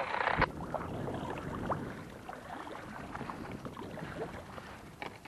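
Water lapping and splashing against a kayak's hull, with small scattered ticks. At the start there is a loud burst of noise that ends in a knock about half a second in.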